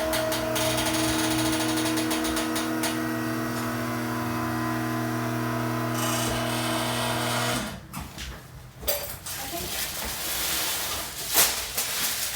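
A small electric motor running steadily with a buzzing hum, cutting off abruptly about seven and a half seconds in, followed by irregular handling noises and a couple of sharp clicks.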